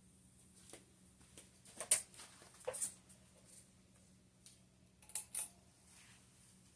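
Hunter Infiniti ceiling fan running on low speed, giving a faint steady motor hum. A few short clicks and rustles come about two seconds in and again about five seconds in.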